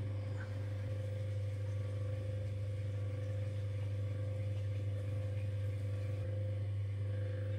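Electric potter's wheel motor running at a steady speed: a constant low hum with a faint higher whine over it.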